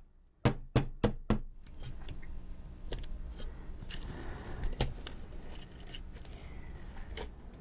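Four sharp knocks in quick succession, about three a second, then a few faint small clicks over low background noise.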